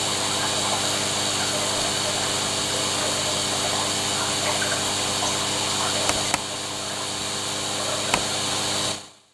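Aquarium pump running: a steady hum with water gurgling, and a few faint clicks near the end before the sound fades out.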